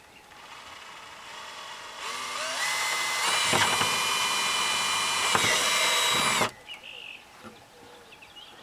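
Cordless drill boring a hole through the plastic wall of a chicken coop. The motor runs slowly at first, rises in pitch to a steady whine about three seconds in, and cuts off abruptly about six and a half seconds in.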